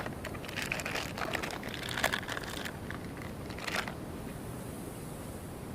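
Crinkling and clicking handling noises close to the microphone as a new soft-plastic trailer is rigged onto a chatterbait, with a sharper click about two seconds in and another near four seconds, then only a faint hiss.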